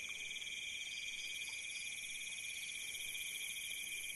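Night chorus of insects such as crickets: several steady high-pitched trills layered together, one of them pulsing rapidly. The frogs that called earlier are not heard.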